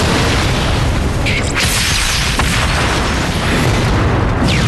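Cartoon explosion sound effect: a loud continuous blast with heavy low rumble, and a fresh burst about a second and a half in.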